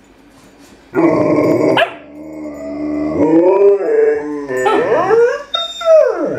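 Adult Alaskan Malamute grumbling and 'talking' in drawn-out, rising and falling woo-woo moans at a pestering puppy, after a short harsh bark-like outburst about a second in. It ends on a falling glide.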